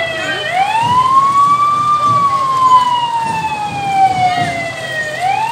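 A siren wailing in a slow cycle. Its pitch climbs about half a second in, then sinks slowly for about three seconds and starts climbing again near the end.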